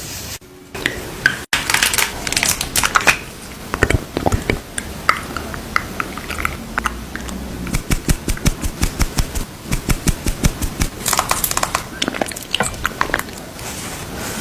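Close-miked tapping and clicking on makeup containers and packaging, with a fast, even run of taps in the middle.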